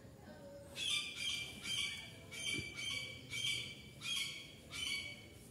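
A bird giving a run of short, harsh squawking calls, about two a second, beginning about a second in.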